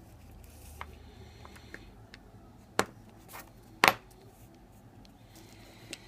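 Sharp, separate clicks and taps as the plastic shell of a Nissan key fob is handled, with the loudest a double click a little before four seconds in.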